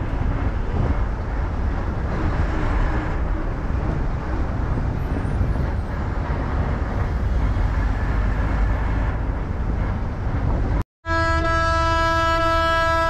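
Steady low rumble of a moving bus: engine and road noise. After a short break about eleven seconds in, a vehicle horn sounds one long steady note for about two seconds.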